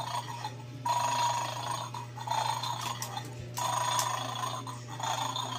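Bell-like electronic ringing in repeated bursts about a second long, with short gaps between them, over a steady low hum.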